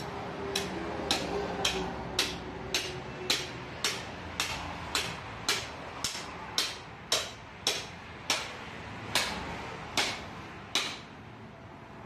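Meat cleaver chopping into a hanging sheep carcass: a run of about eighteen sharp chops, roughly two a second, spacing out a little and stopping near the end.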